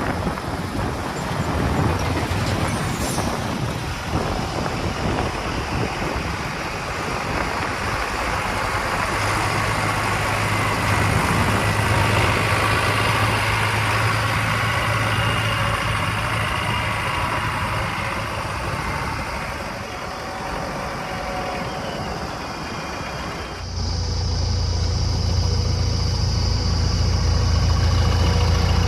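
Heavy diesel vehicle engine running steadily. Near the end the sound switches abruptly to a louder, deeper engine hum.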